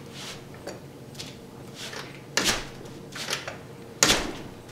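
Exterior door latch being tried and the door pushed against the jamb: a series of clicks and knocks, the loudest two about two and a half and four seconds in. The latch bolt is not fitting the newly installed striker plate.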